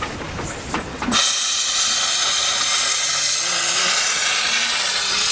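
Steam locomotive (the replica of the 1853 Förstlingen) letting off steam: a loud, steady hiss that starts suddenly about a second in. Before it there is a low rumble with knocks.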